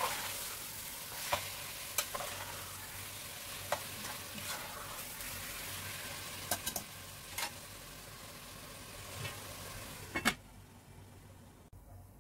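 Beef chunks and onions sizzling in a stainless steel pot while a metal spoon stirs them, with sharp clinks of the spoon against the pot every second or two. Near the end a loud clank as the lid goes on the pot, and the sizzle drops to a faint hiss.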